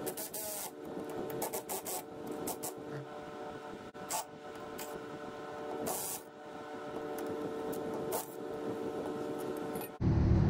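Milwaukee cordless ratchet spinning a 5/8 in U-bolt nut off a golf cart's rear leaf spring. It runs in a string of short bursts of motor whir and rasping metal, loudest near the start and again about six seconds in.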